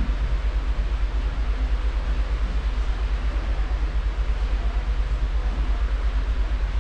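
Wind buffeting the camera microphone as a fluttering low rumble, over a steady rush from the cruise ship's wake churning behind the stern.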